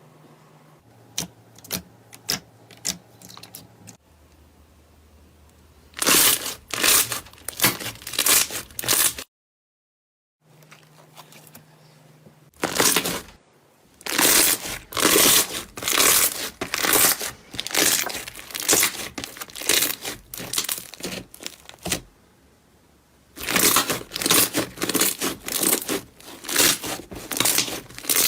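Slime being squeezed and pressed by hand, giving rapid crackling pops in several loud bursts with short quiet gaps between them.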